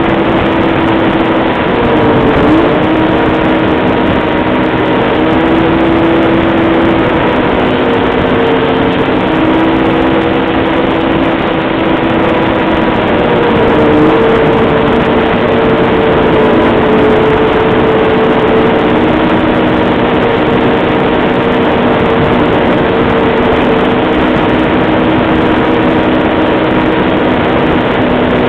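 Snowmobile engine running hard at trail speed with a steady whine that dips briefly and climbs back twice, about two seconds in and again around the middle, as the throttle eases and picks up. A dense rush of track and snow noise runs under it.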